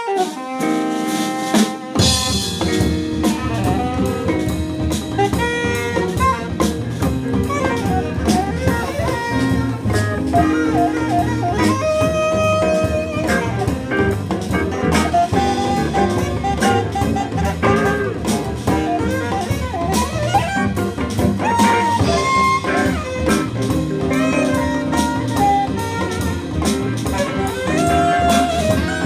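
Small jazz ensemble playing live: saxophones over drum kit, double bass and electric guitar. It opens on held notes, and the bass and drums come in about two seconds in.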